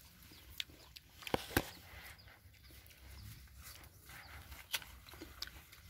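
Faint footsteps and rustling through grass and leaves, with scattered light clicks and a soft thump about a second and a half in.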